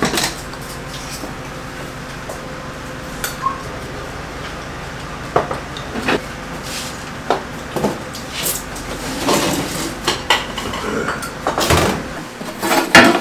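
Kitchen clatter at a soup counter: scattered clinks and knocks of metal bowls and pot lids at a steaming broth cauldron, more frequent in the second half, over steady background noise.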